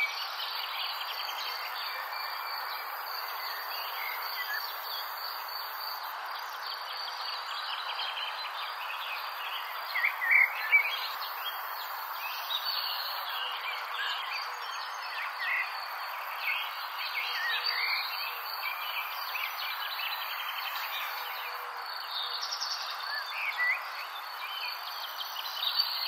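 Summer nature ambience: birds chirping here and there, with a few louder chirps about ten seconds in, over a steady high insect trill and a continuous even hiss.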